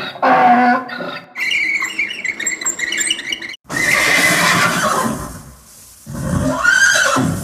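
Recorded call of an equine animal: a run of rough, pulsing calls, then a higher, noisier call with a falling pitch, and a rising-then-falling call near the end.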